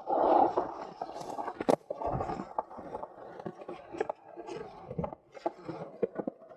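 Skateboard wheels rolling and scraping over a skatepark surface, broken by repeated sharp clacks and knocks of the board.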